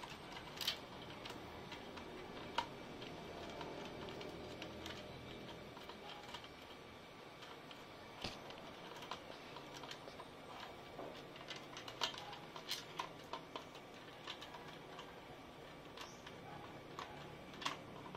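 Faint, scattered clicks and ticks of a T-handle screwdriver and small screws being handled, with a few close together about twelve seconds in.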